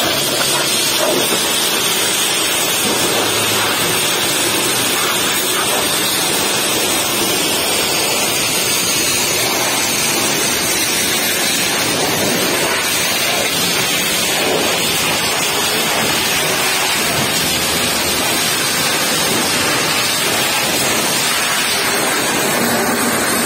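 Pressure washer lance blasting a high-pressure water jet against a semi-trailer's tarpaulin curtain side: a steady, loud hiss of spray.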